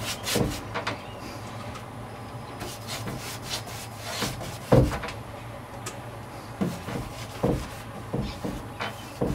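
Paintbrush stroking paint across the wooden top rail of a panel door: irregular swishing, rubbing brush strokes, the loudest one about halfway through.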